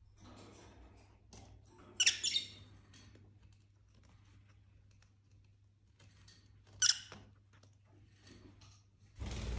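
Lovebirds giving short, sharp, high chirps: a quick cluster about two seconds in and one more near seven seconds, over faint scratchy rustling as a lovebird clings to the curtain fabric with its claws. A louder burst of rustling sets in near the end.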